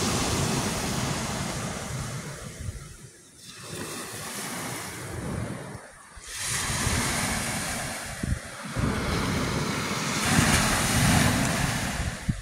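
Small waves breaking and washing over a shingle beach, swelling and falling back, loudest near the end, with wind buffeting the microphone.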